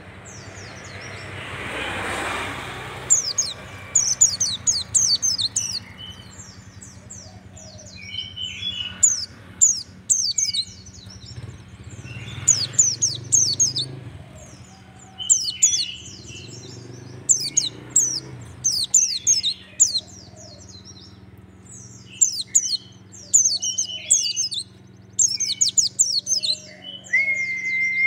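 Caged white-eye (pleci dakun) singing in quick bursts of rapid, high, downward-sweeping chirps, repeated every second or two.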